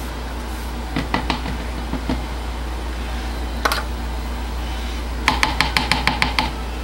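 A small spoon clicking and scraping against a small plastic cup as soap colorant is scraped out. Near the end comes a quick run of about nine taps, the spoon knocked against the rim of a plastic measuring pitcher to shake off the last of the color. A steady low hum runs underneath.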